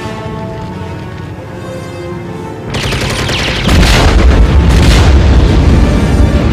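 Orchestral film score, then a burst of machine-gun fire about two and a half seconds in. About a second later a truck explodes, loud, with a deep rumble that runs on.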